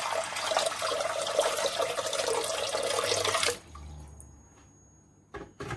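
Water poured in a steady stream into a large pot on the stove, splashing on the pot's bottom, stopping abruptly about three and a half seconds in. Two short light knocks follow near the end.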